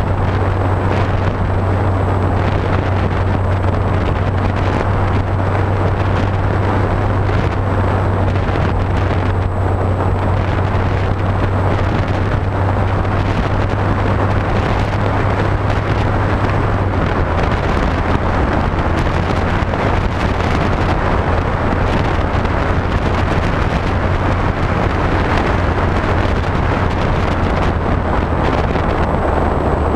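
Onboard audio from a HobbyKing SkyEye electric pusher FPV plane in flight: wind rushing over the airframe and microphone, over a steady low drone from its motor and propeller. The drone drops a little in pitch a little past halfway through.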